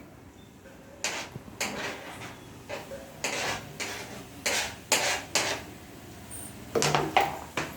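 A kitchen utensil scraping and knocking against a pan and plate as chopped onions are put in to fry: about ten short, irregular scrapes and taps.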